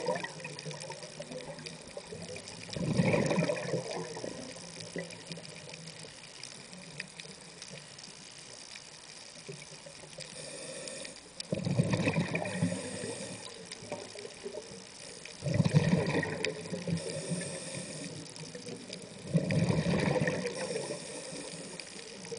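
Scuba diver's exhaled breath bubbling out of the regulator, heard underwater: four bursts of a second or two each, with quieter stretches between breaths.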